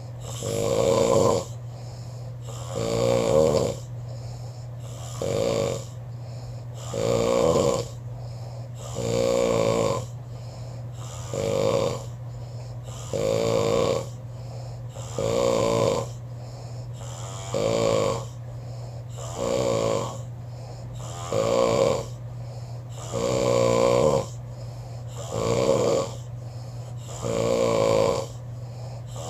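A man snoring steadily, one rattling snore about every two seconds. A steady low hum runs underneath.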